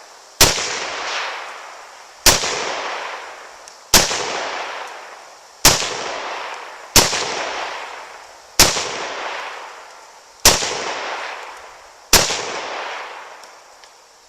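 Eight gunshots fired one at a time, spaced about one and a half to two seconds apart, each followed by a long echo that fades over a second or more.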